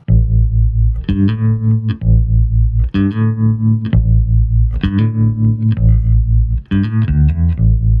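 Electric bass played through a Boss TR-2 Tremolo pedal at full depth, its wave knob set toward the smooth, triangle-shaped side. A bass line of notes falls about a second apart, and the volume of each note pulses rapidly and softly rather than cutting off abruptly.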